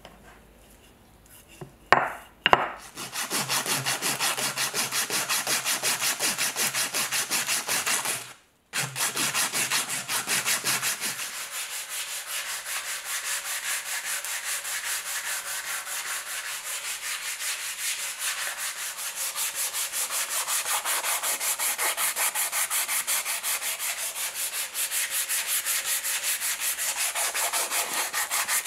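Coarse P80 sandpaper rubbed by hand back and forth along a wooden hammer handle in quick, even strokes. Two sharp knocks come just before the sanding starts, and the sanding breaks off briefly about a third of the way through.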